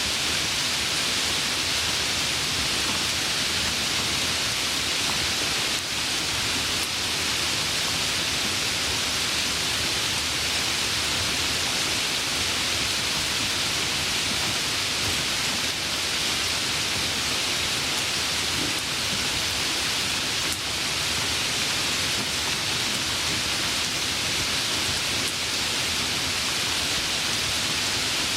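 Steady, even rainfall: a constant hiss of rain, with no distinct drops or thunder standing out.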